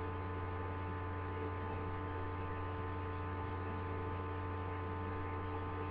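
Steady electrical mains hum: a low drone with a row of fainter, evenly spaced higher tones above it, unchanging throughout.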